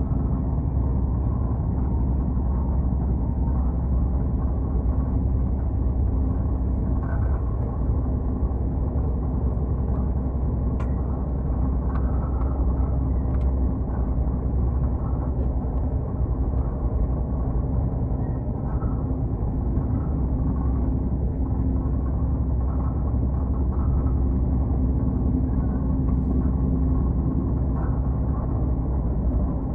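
Steady low rumble of a moving Indian Railways train running at a constant pace, with a few faint clicks scattered through it.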